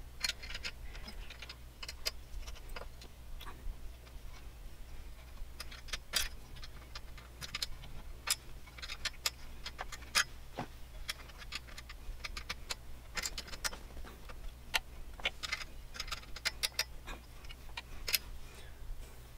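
Irregular small metallic clicks and taps of an Allen key being worked in a tight screw on a scroll saw's metal lower blade holder, over a low steady hum.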